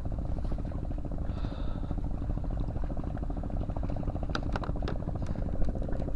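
A small engine running steadily with an even, rapid pulse, with a few sharp clicks about four to five seconds in.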